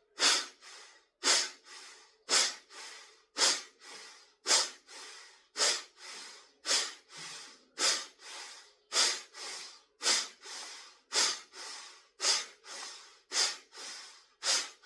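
Forceful nasal exhalations with the mouth closed, one sharp blast about every second, each followed by a softer breath in. These are drying strokes after jal neti that push the water left inside out of the nasal passages.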